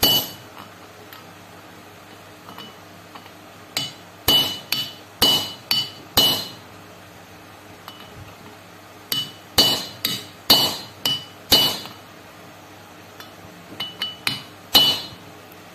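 Hammer tapping a small camshaft bearing into its bore in a Yamaha FZ150i cylinder head. About fifteen sharp metallic strikes, each with a short ring, come in clusters of one to three with pauses between, as the bearing is driven in evenly a little at a time.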